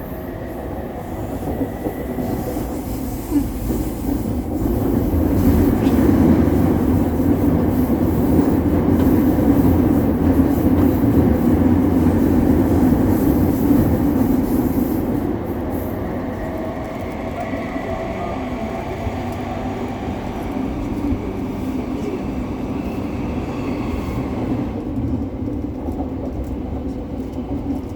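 JR Chūō–Sōbu Line commuter train running between stations, heard from inside the car: a steady rumble of wheels on track that swells for several seconds in the middle and then eases, with a faint whine over it.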